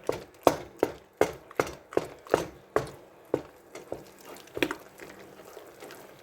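Wooden spoon beating a stiff egg-and-flour dough in a saucepan, knocking about three times a second as the egg is worked in. The strokes stop a little after three seconds, with one last knock about a second later.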